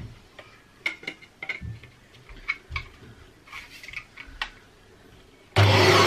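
Plastic parts of a Shark upright vacuum cleaner being handled: a string of short clicks and knocks as the hose and nozzle are pulled out and fitted. Near the end a loud steady noise with a low hum cuts in suddenly.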